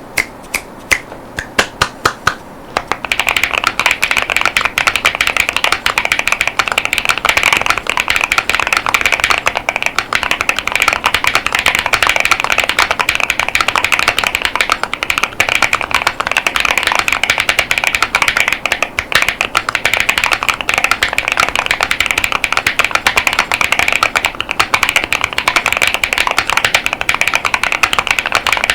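Akko JIN01 mechanical keyboard with Wuque Studio Light Tactile 35gf switches and PBT Cherry-profile keycaps being typed on. A few separate keystrokes in the first three seconds, then fast continuous typing.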